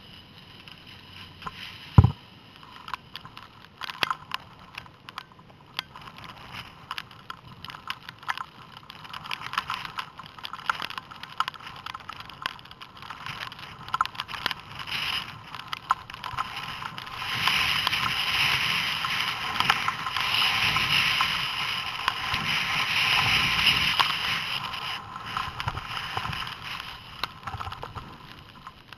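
Skis sliding and scraping over snow, with many short scrapes and clicks and a sharp knock about two seconds in. Through the middle and latter part the snow rush grows louder and steadier for several seconds before easing off.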